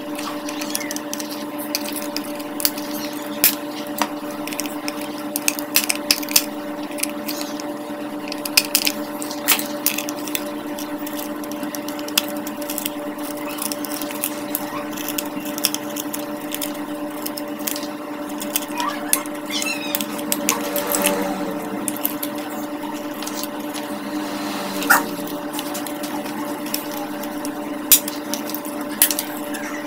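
Scattered clicks and taps of a small plastic speaker casing and its parts being handled and pried apart with a tool, over a steady low hum.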